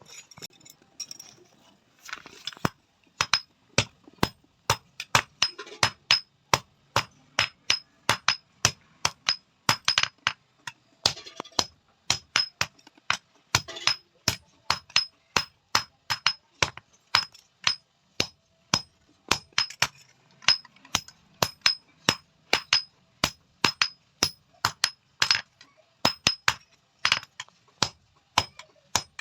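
Hand hammer beating an iron tawa plate on an anvil: a steady run of blows at about three a second, each with a short, high metallic ring, starting about two seconds in.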